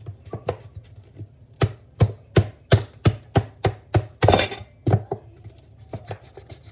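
A sauce bottle being banged repeatedly to get out sauce that is stuck inside: a run of sharp thuds, about three a second, loudest in the middle and thinning out near the end.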